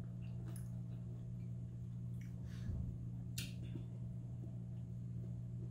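Faint eating sounds: a few soft mouth smacks and clicks from chewing and handling mango and chicken by hand, the sharpest about three and a half seconds in, over a steady low hum.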